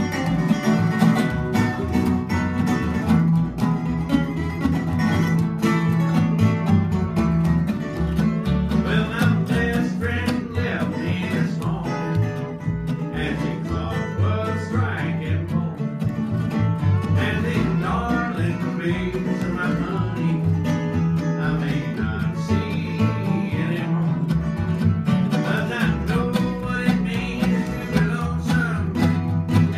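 Acoustic string band playing a country song live: bowed fiddle, strummed archtop and resonator guitars, and plucked upright bass, with a man singing into the microphone at times.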